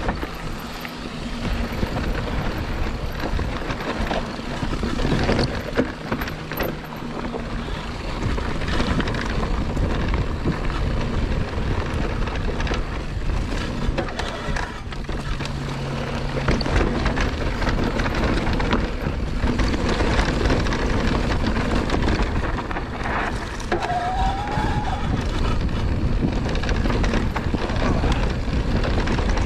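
Scor 4060 Z ST electric mountain bike ridden fast down a rough dirt trail: tyres grinding over dirt and rocks, the bike rattling over bumps, and wind buffeting the action camera's microphone. A low steady hum comes in a few times, and there is one short squeal late on.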